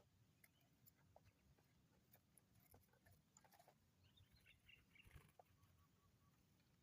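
Near silence, with faint scattered clicks and a few faint, short high chirps about halfway through.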